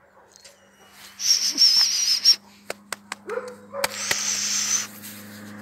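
A group of dogs playing rough: a short bark a little past the middle, between two bursts of rough, hissing noise and a few sharp clicks.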